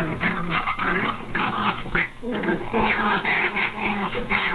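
Angry cat growling continuously as a territorial warning, its pitch rising and falling.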